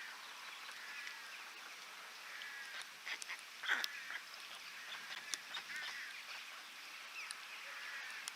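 Birds calling in short, repeated cries that bend up and down in pitch, with a few sharp ticks among them.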